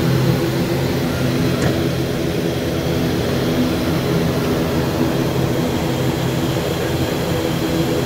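Steady hum inside a jet airliner's cockpit on the ground: engines and air systems running, with several constant low tones over a broad hiss and one faint tick about one and a half seconds in.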